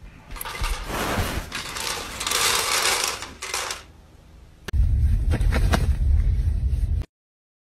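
Dry kibble clattering out of an automatic pet feeder for a few seconds. Then a loud low rumble inside a car with a few sharp clicks, cutting off suddenly.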